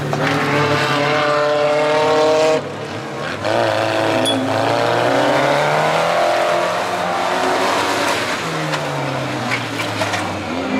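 Off-road 4x4 race vehicles' engines revving hard on a dirt track, the pitch climbing and falling as they accelerate and back off. The sound breaks off abruptly about two and a half seconds in, then picks up again.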